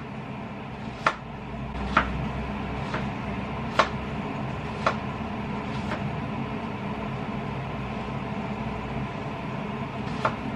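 Kitchen knife slicing an apple thinly on a wooden cutting board, the blade tapping the board about once a second for six seconds and once more near the end, over a steady low hum.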